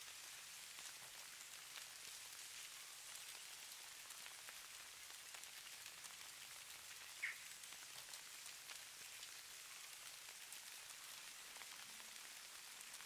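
Falling snow pattering faintly and steadily on surfaces, a hiss of many fine ticks. One brief, high, falling chirp sounds about seven seconds in.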